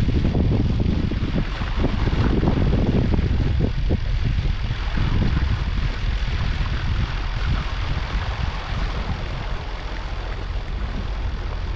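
Motor cruiser's engine running steadily while underway, with a low drone and the hiss of water and air. Wind buffets the microphone in gusts for the first several seconds, then eases.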